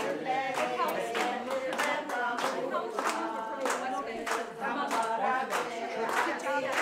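A group of people singing together without instruments, clapping in time about twice a second.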